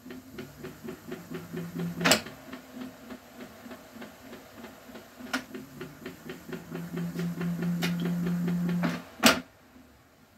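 A 24-volt DC electric motor spinning a Volvo V70 manual transmission, with a low hum and a steady ticking several times a second, the 'ticky tick ticky noise' that the builder puts down to the motor and gearbox being a little out of alignment. The hum drops out about two seconds in and comes back around halfway; sharp clicks sound a few times, the loudest near the end as it stops.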